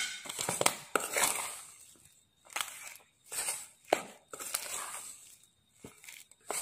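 Metal spoon mixing a stiff mashed-potato and flour dough in a stainless steel bowl: irregular scraping strokes about once or twice a second, some with sharp clicks.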